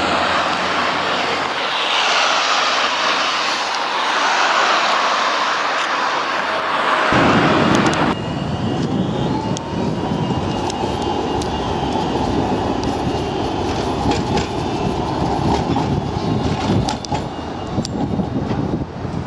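Road traffic and wind hiss with a whooshing sweep, then a city tram (Rotterdam Alstom Citadis) running past. Its electric traction motors give a whine that rises and then holds steady, over a low rumble of wind on the microphone. Several sharp clicks near the end come from the wheels crossing rail joints and points.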